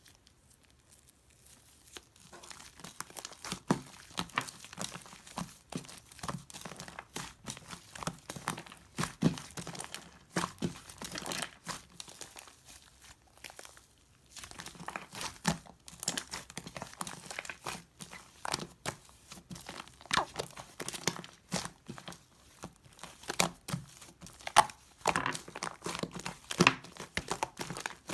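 Slime being squished, poked and stretched by hand, making a dense, irregular run of small crackling clicks and pops, with a short lull about halfway through.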